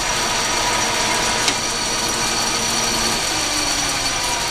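Logan 922 metal lathe running under power, its gear train and lead screw turning with a steady mechanical whir and a few held tones, with a single sharp click about a second and a half in.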